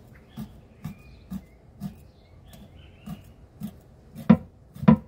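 Sharp knife scoring a whole fish crosswise on a wooden board: a short crunch about twice a second as the blade cuts through the flesh and small bones down to the wood. There is a short pause partway through, and the last few cuts are louder.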